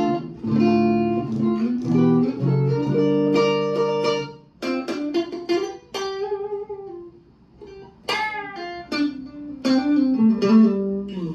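Stratocaster-style electric guitar with a maple neck, played clean on its middle pickup: busy picked chords for the first few seconds, then sparser single notes with a brief lull, and a loud strummed chord about eight seconds in.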